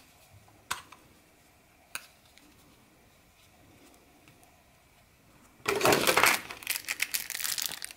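Two sharp clicks as a folding knife is handled, then, from a little before six seconds in, loud crinkling of plastic packaging being handled.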